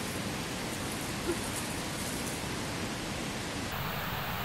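A steady, even hiss of outdoor background noise, with no distinct events.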